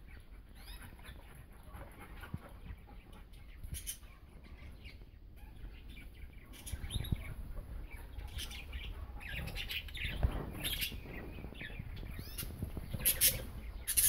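Budgerigars chirping and chattering in short, sharp calls that come thicker and louder in the second half, over a low rumble.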